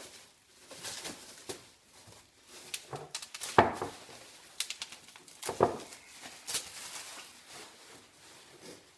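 Irregular clicks, knocks and rustles of machined parts and packaging being handled during unpacking, with two louder knocks about three and a half and five and a half seconds in.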